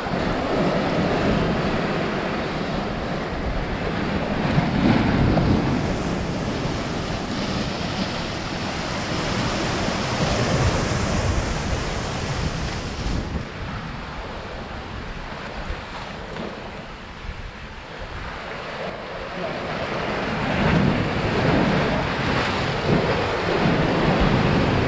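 Sea surf surging and washing against shoreline rocks, with wind buffeting the microphone. The wash swells, eases off in the middle and builds again near the end.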